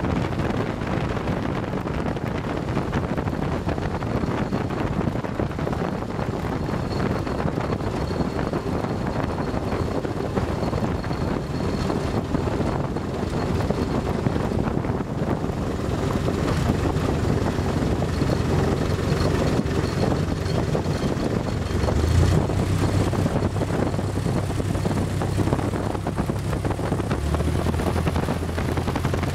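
Piper L-21 Super Cub landing on a grass strip, heard from inside the open-sided cockpit: the engine's steady drone under a rush of wind. A bump about two-thirds of the way through, after which a low engine hum stands out more as the plane rolls out on the grass.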